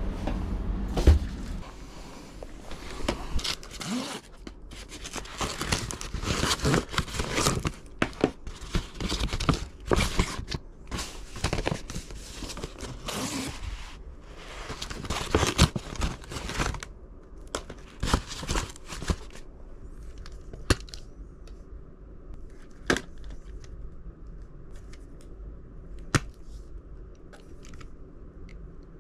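Packaging being torn open and crumpled, rustling and crinkling in irregular bursts for about the first seventeen seconds. After that come just a few sharp clicks.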